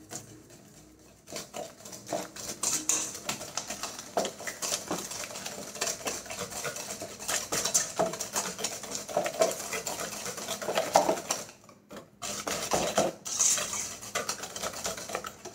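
Wire whisk beating eggs and sugar in a stainless steel bowl: rapid clicking and scraping of the wires against the metal. It starts about a second in and has a short break near the end.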